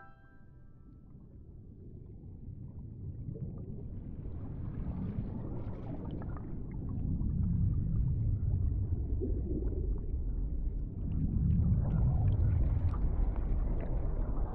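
Underwater sound of a flowing river: a low rumble of current with scattered small clicks, fading up from near silence and swelling in two waves.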